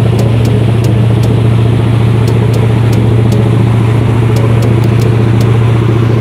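Motorboat engine running steadily under way, a loud low drone over a constant rush of water and wind.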